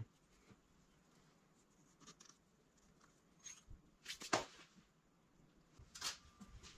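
Turbocharger parts being handled and set down on a parts tray: faint clicks and a few soft knocks, the loudest about four seconds in as the turbo's centre housing goes down, another about six seconds in.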